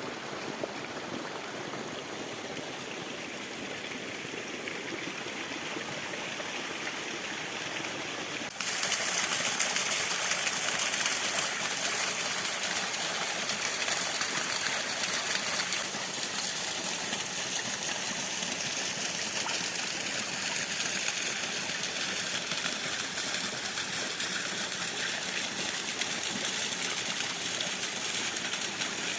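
Water rushing steadily over a small waterfall, about five metres high, and down its stream. The sound jumps abruptly louder about eight seconds in and stays there.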